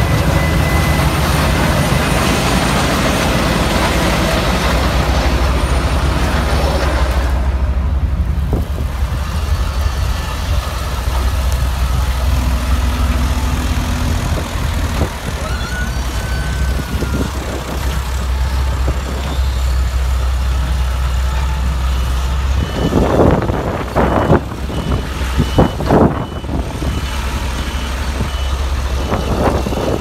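Large engine-driven wood chipper running with a steady low engine drone, shredding wood with a loud, dense noise for the first several seconds and again in a few loud surges about 23 to 26 seconds in.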